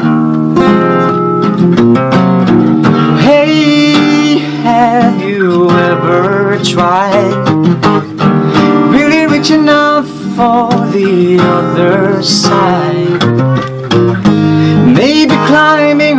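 Acoustic guitar playing, with a young man singing along from about three seconds in: a vocal-and-guitar song cover played back from a video.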